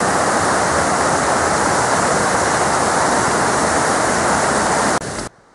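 Mountain stream rushing down a rocky cascade: a loud, steady rush of water that cuts off suddenly near the end.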